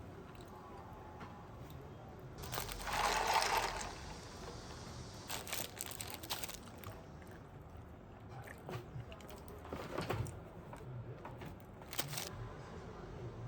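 Eating and food-handling sounds: a rustling, crunching burst about two and a half seconds in, then scattered clicks and crunches.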